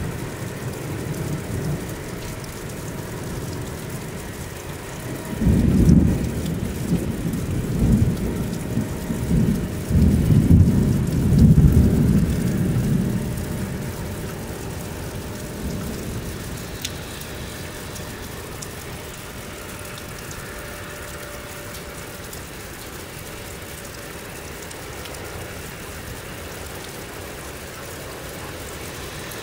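Thunder over steady heavy rain: a loud thunderclap breaks about five seconds in and rumbles on in rolling surges for about eight seconds before fading, leaving the rain.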